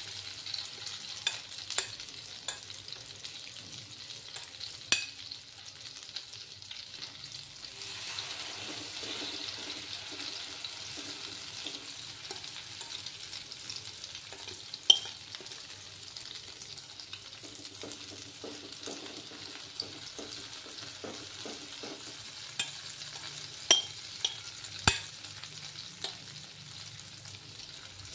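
Grated potato pancake batter sizzling steadily in oil in a non-stick pan over a low gas flame, with a steel spoon clinking sharply against the bowl and pan now and then, the loudest clink about halfway through and a quick cluster near the end.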